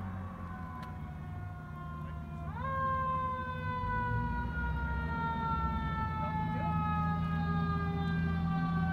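Fire engine's mechanical siren winding up quickly about two and a half seconds in, then slowly winding down, over a low engine rumble that grows louder as the truck approaches.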